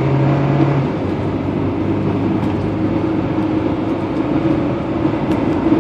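1996 Acura Integra's 1.8-litre four-cylinder engine pulling the car under throttle, with road noise, heard from inside the cabin; the engine note steps down to a lower pitch about a second in and then holds steady. The car hesitates and slightly misfires on acceleration, a fault later cured by replacing the engine computer.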